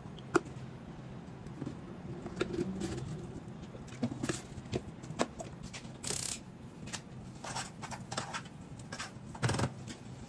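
Kitchen utensils and pots being handled at a stove: scattered light knocks and clinks, with a brief hiss about six seconds in and a heavier knock near the end.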